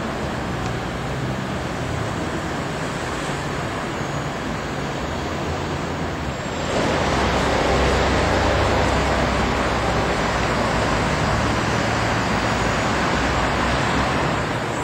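Steady city road traffic noise, with no distinct events; it gets louder about six and a half seconds in.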